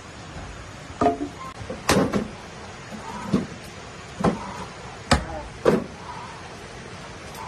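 Firewood being handled: a series of sharp, irregular knocks roughly a second apart, wood striking wood.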